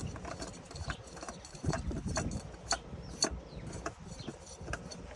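New oil filter being threaded onto its mount by hand: irregular small clicks and knocks of the filter and hand against the mount, several a second.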